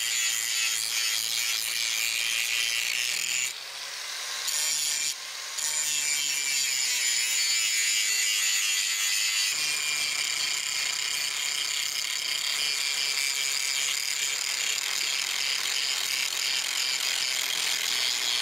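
Angle grinder with an abrasive disc grinding a steel kukri blade, a steady high hiss of disc on metal. It eases off briefly about four seconds in and again about five seconds in.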